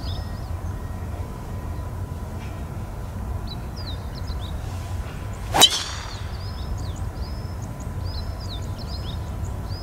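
Golf driver tee shot: a single sharp, ringing crack of the clubhead striking the ball about five and a half seconds in. Birds chirp on and off throughout.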